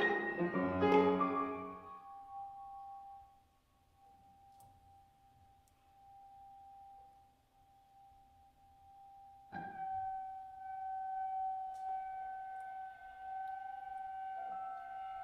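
Contemporary chamber music from a quintet of flute, clarinet, piano, violin and cello. A loud dense chord with piano rings and dies away over the first two seconds, leaving one quiet high note held alone. About ten seconds in, a louder sustained high note enters and holds steadily.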